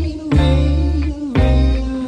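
Jamaican rocksteady song playing: a male singer over a steady bass line and band.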